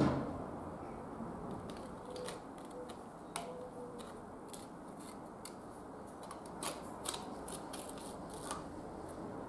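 Light metallic clicks and ticks as a thin metal head gasket is lowered over the head studs and settled onto the engine block. There is a soft knock right at the start, and the clicks come more often near the end, over a steady low hiss.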